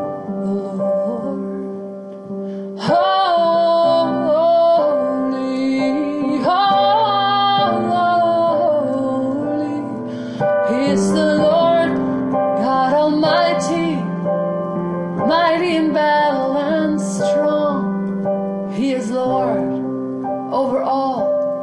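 Spontaneous worship: held piano chords, first on their own, then a woman's voice comes in about three seconds in, singing long melodic lines without clear words over them.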